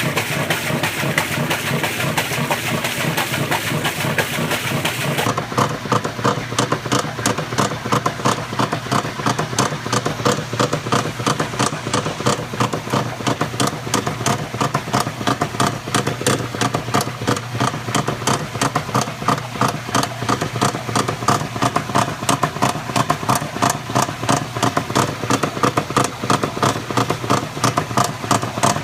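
Maytag Centennial top-load washer agitating with a loud, fast, even knocking and clatter, a noise it does not normally make; the owner suspects a bearing.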